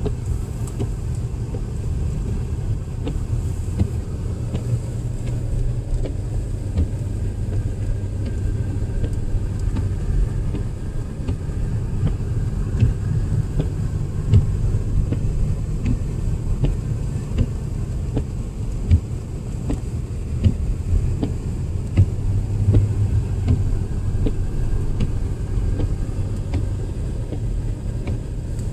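Steady low rumble of a car on the move: road and engine noise, with small scattered clicks and knocks.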